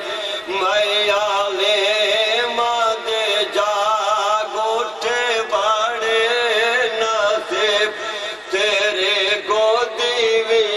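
A male voice singing a Punjabi naat in long, wavering, ornamented lines over a steady low drone.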